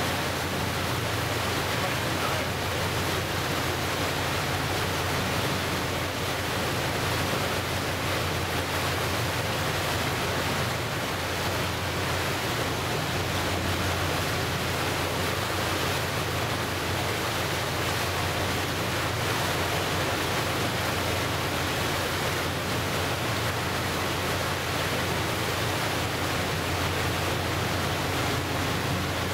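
Steady rushing of wind and choppy water washing against the shore.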